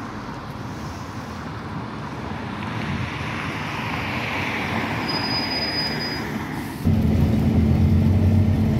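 A Scania N230UB OmniCity diesel bus draws closer and pulls in, growing louder, with a brief thin high brake squeal about five seconds in. Nearly seven seconds in the sound changes abruptly to the bus heard from on board: a loud, steady low engine drone as it moves.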